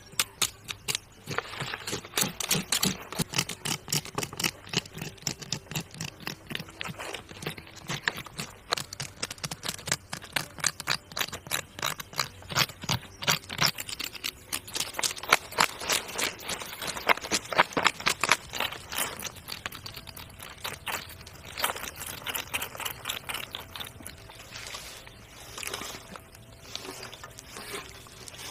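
Rapid scraping strokes on a crocodile's scorched hide, several a second, thinning out over the last several seconds.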